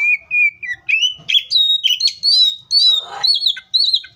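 Oriental magpie-robin singing a fast, varied run of clear whistled notes that sweep up and down, with a short harsh rasp about three seconds in.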